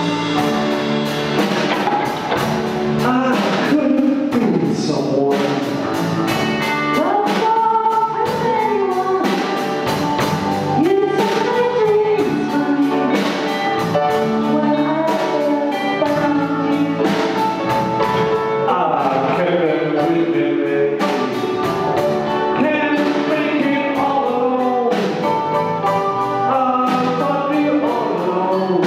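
Live rock band playing: a woman sings lead over electric guitars, bass guitar, a drum kit and keyboards.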